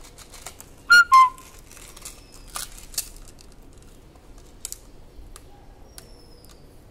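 Two short, loud whistle-like chirps about a second in, the second lower and falling in pitch. Light clicks and crinkles of jewellery and plastic packaging being handled follow.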